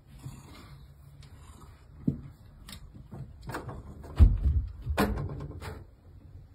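A cat jumping between wall shelves and a cat tree's platforms: a few knocks and thumps, the loudest a heavy thud about four seconds in as it lands on a round platform, then a sharper knock a second later.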